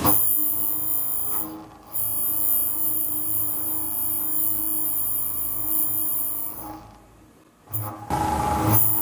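CNC machining center running a milling cut in steel, with a steady whine of fixed tones from the spindle and machine. The sound drops away for about a second near the end, then returns with a short loud rush of noise.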